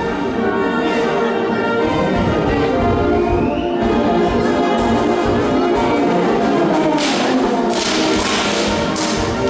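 Brass band playing, with held horn notes and a wash of noise like a cymbal crash about seven seconds in.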